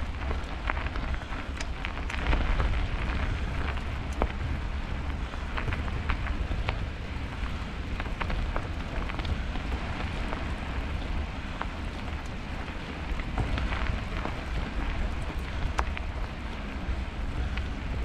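Bicycle rolling along a snowy road: a steady hiss of tyres and wind, a low rumble of wind on the microphone, and scattered small clicks and knocks.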